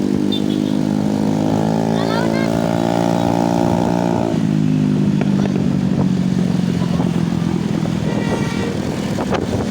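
Vehicle engine running on the road: its pitch steps up about a second and a half in, drops back after about four seconds, then holds steady.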